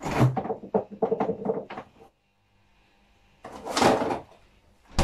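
Kitchen cupboard doors and their contents knocking and rattling in quick succession for about two seconds, then, after a short pause, a brief rustling scrape.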